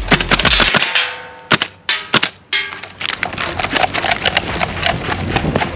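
Gas blowback airsoft rifle firing, with BBs smacking into wood: a few single shots between about one and a half and two and a half seconds in, then a fast run of shots and hits.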